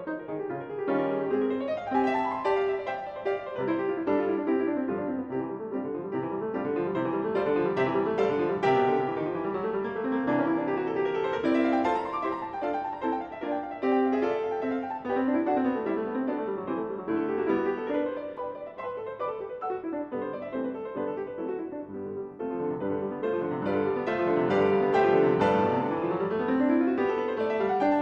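Background piano music: a flowing run of notes, sweeping upward in pitch several times.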